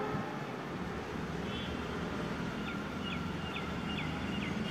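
A bird calling a quick series of five short, high notes, each dropping in pitch, about two a second, after a single brief note a second and a half in, over a steady low background hum.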